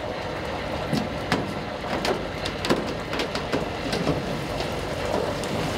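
Fishing-boat deck noise as a netful of fish is hoisted aboard: steady machinery noise with irregular knocks and clatters throughout.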